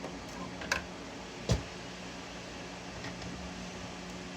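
A tool picking at 3D-printed PLA support material: a faint click, then one sharper knock about a second and a half in, over a steady low hum.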